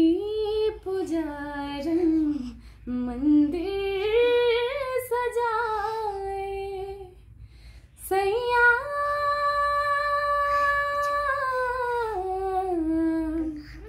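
A woman singing a Hindi song unaccompanied, drawing the melody out in two long phrases with a short break about seven seconds in. The second phrase holds one long note and then falls away at the end of the song.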